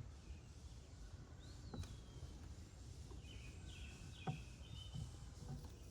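Quiet outdoor background with a few faint bird chirps, a short rising-and-falling call about a second and a half in and a run of notes about three seconds in, and two light clicks.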